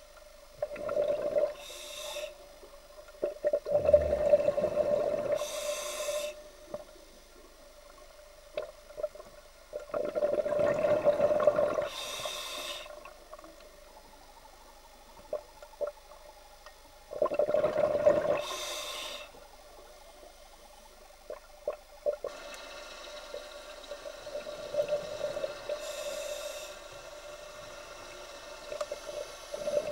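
Scuba diver breathing through a regulator underwater: loud bubbling exhalations with a short regulator hiss, about one breath every six to seven seconds, over a steady hum.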